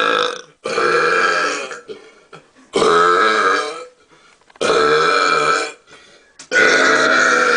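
Men belching deliberately, a run of long, loud burps with a clear pitch, each lasting over a second, coming about one every two seconds, with a new one starting near the end.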